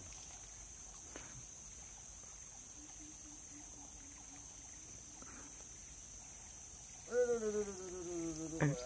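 Steady high-pitched buzz of insects. About seven seconds in, a long drawn-out call that falls slightly in pitch rises above it.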